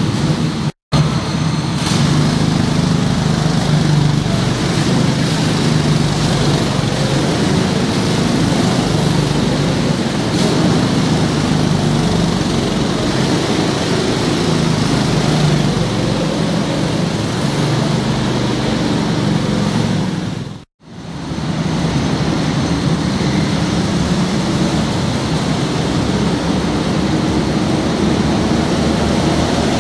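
Several go-kart engines running and revving together in an indoor kart hall, a steady loud engine din. The sound cuts out sharply for a moment just after the start and again about two-thirds of the way through.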